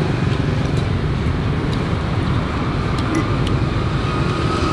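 Steady street traffic noise, a continuous low rumble of passing vehicles, with a few faint light clicks over it.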